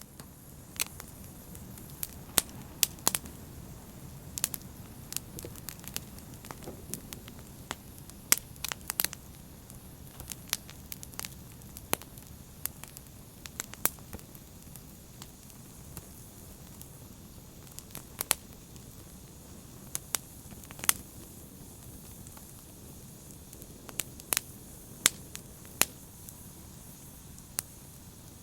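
Wood fire burning: sharp, irregular crackles and pops over a steady low rush of flame, busiest in the first half.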